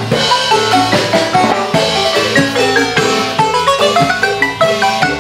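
Wooden Chiapas marimba played by two players with mallets, quick runs of struck notes in an instrumental passage of a dance tune, with the band's bass guitar and drums keeping the rhythm behind.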